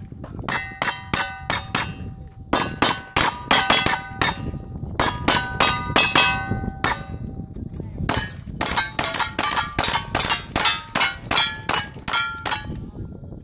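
Rapid gunfire from two shooters with revolvers and rifles, each hit answered by the ringing clang of a steel plate target. The shots come in quick strings with two short pauses.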